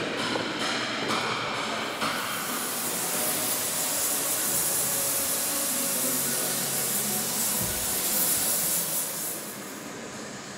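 A long, loud hiss of pressurised gas being let off. It swells about two seconds in and dies away near the end, with a few sharp clicks before it and a low thud in the middle.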